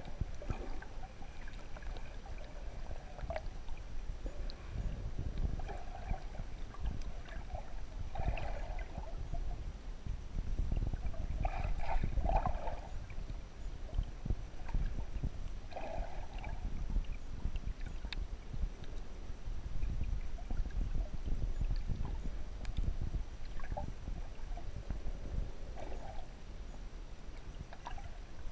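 Underwater ambience picked up by a submerged camera: a constant low, muffled rumble of moving water with uneven swells, broken by a few short muffled bursts every few seconds and an occasional faint click.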